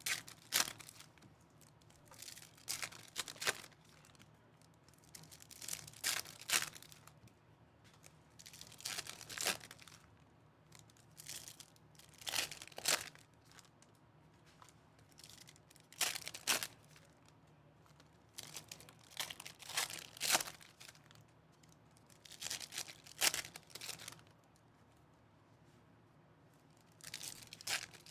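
Trading-card pack wrappers being torn open and crinkled, in short bursts every few seconds.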